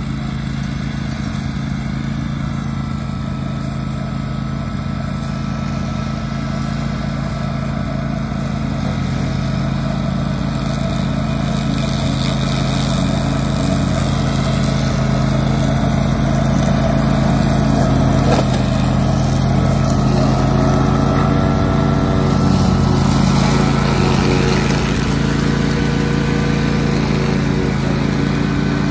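Kawasaki engine of a Tracmow XROT80 remote-controlled tracked slope mower running steadily as it mows grass. It grows louder as the mower comes closer.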